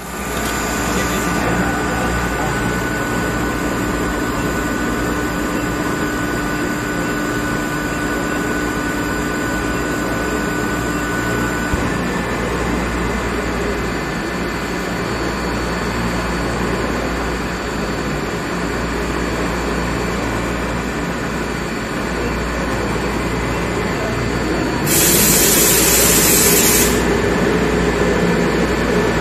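Campbell Hausfeld 10 hp rotary screw air compressor running steadily: a low motor-and-fan hum with a few thin steady whining tones. Near the end, a loud hiss lasts about two seconds.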